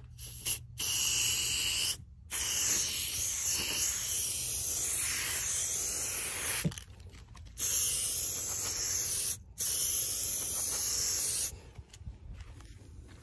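Aerosol spray paint can hissing as paint is sprayed onto plywood, in several bursts of one to four seconds with short breaks between, as the nozzle is pressed and released.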